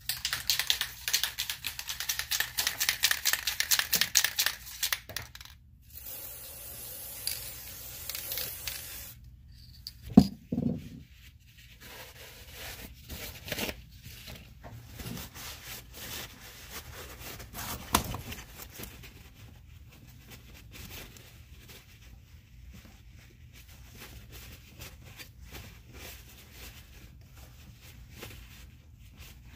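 Hand cleaning of metal bench-grinder parts: about five seconds of rapid scrubbing strokes, then a few seconds of hiss like a spray cleaner, then scattered clinks and knocks of small metal pieces being handled, with two sharper knocks.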